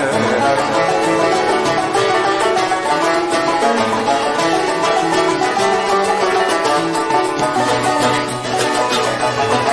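Instrumental break in a chaabi song: plucked string instruments play a fast, busy melody between sung verses.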